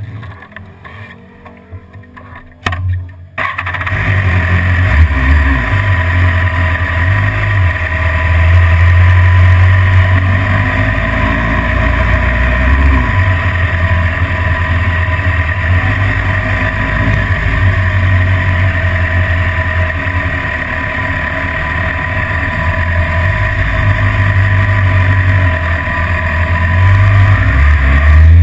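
BMW S1000RR inline-four sport bike running and riding, heard through a camera mounted on the bike: engine and wind noise. Quiet for the first few seconds, then after a knock about three seconds in the sound turns loud and stays steady.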